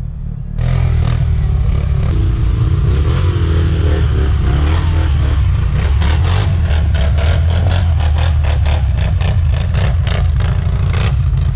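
ATV engines revving as the four-wheelers churn through a deep mud rut, with clattering knocks; the sound jumps louder about half a second in.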